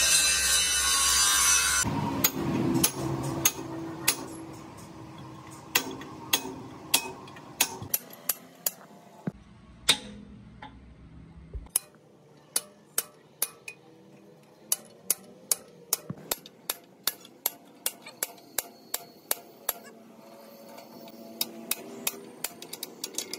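An angle grinder cutting steel on a truck axle housing cuts off about two seconds in. A long run of sharp hammer blows on the metal housing follows, about one to two a second, with a brief pause around the middle.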